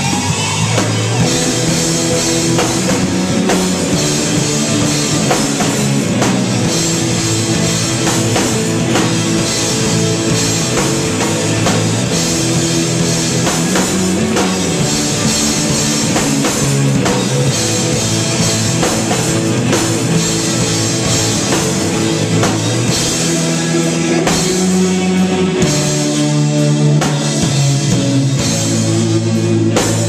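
A live rock band plays loudly and steadily on electric guitars and a drum kit.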